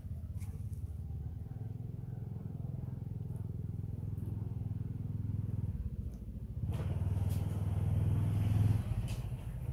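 An engine running steadily, growing louder with added hiss about seven seconds in, then dropping back shortly before the end.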